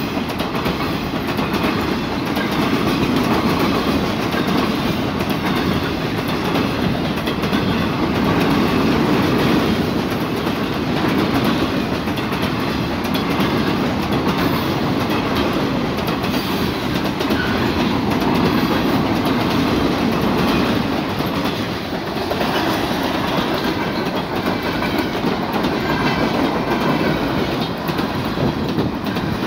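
Freight cars rolling steadily past at close range: a continuous rumble of steel wheels on rail, with repeated clicks as the wheels cross the rail joints.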